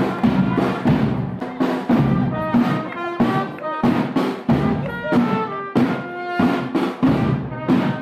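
Marching band music: snare and bass drums beating a march rhythm under a melody.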